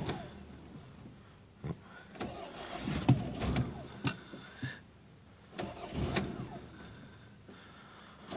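1994 Toyota Camry 2.2-litre four-cylinder being cranked by its starter in two short attempts, about two seconds in and again near six seconds, with clicks between, without the engine catching: a hard cold start.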